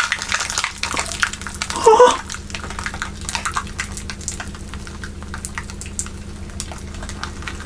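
A crumpled ball of black string crackling with many small clicks as it settles in the hand after the balloon inside it has popped. There is a brief squeak about two seconds in.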